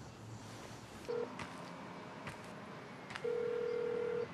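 Telephone ringback tone heard through a handset. A short beep comes about a second in, then one steady tone lasting about a second near the end, over a few faint clicks.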